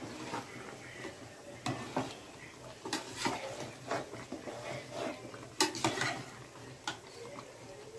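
A metal ladle stirring a watery chicken curry in a metal cooking pot, scraping through the gravy and knocking against the pot's sides in irregular clanks.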